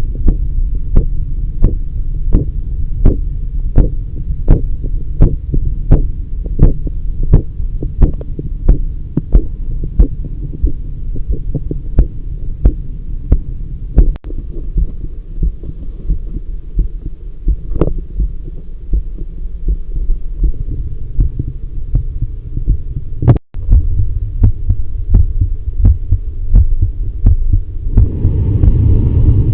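Heartbeat heard through a Littmann Classic III stethoscope chest piece: regular thumps, about two a second, over a steady low rumble. The sound cuts out briefly twice, and near the end the rumble grows louder and hissier.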